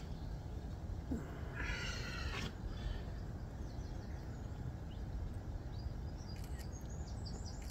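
Low, steady outdoor rumble with one short, high, wavering cry about two seconds in and a few quick bird chirps near the end.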